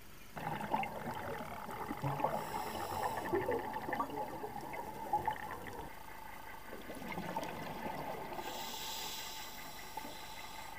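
Scuba diver's regulator breathing, heard underwater: long crackling bubble streams of exhaled air, broken twice by a short, sharp hiss of inhalation, once about two seconds in and again near the end.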